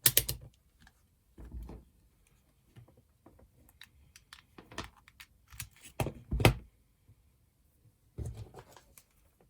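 Scattered clicks and knocks of a multimeter and its probes being handled on a workbench to check a USB lead's polarity, a second or more apart, the loudest right at the start and again about six seconds in.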